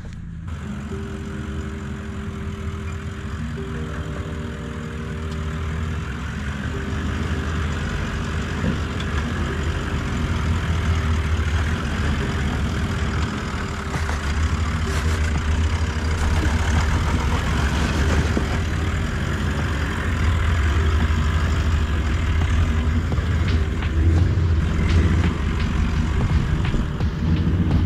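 Toyota LandCruiser 70-series engine pulling at low speed as the four-wheel drive climbs a wet off-road track, growing louder through the climb. Occasional knocks sound over the engine.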